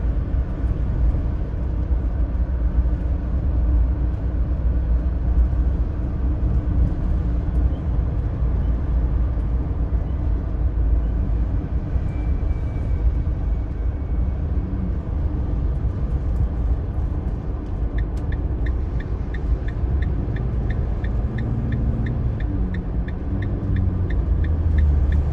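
Steady low road and engine rumble of a camper van driving along, heard from inside the cab. About three-quarters of the way through, a regular ticking starts, about two ticks a second.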